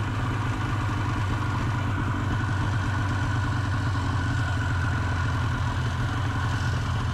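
Two-stroke snowmobile engine idling steadily.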